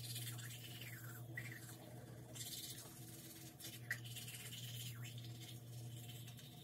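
Manual toothbrush scrubbing teeth: a soft wet brushing rasp in short bouts, over a steady low hum.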